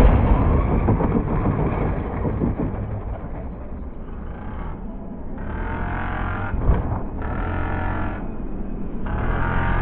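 Traxxas X-Maxx RC monster truck's brushless electric motor and drivetrain whining in several bursts of throttle over a low rumble, with one sharp knock about seven seconds in. The sound is dull, with no high treble.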